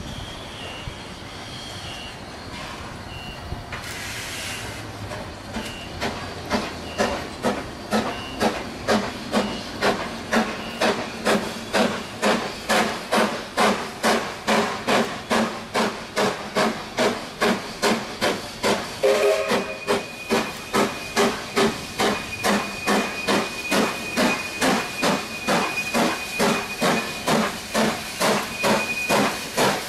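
AC16-class 2-8-2 steam locomotive 221A working a train, its short-stack exhaust beating loudly and evenly at about two and a half beats a second. It starts as a soft hiss and steam and becomes loud about six seconds in as the engine comes out of the tunnel.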